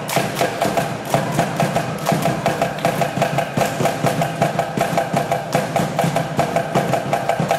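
Pacific Island group dance performance: a fast, even percussion beat with seated performers clapping in unison.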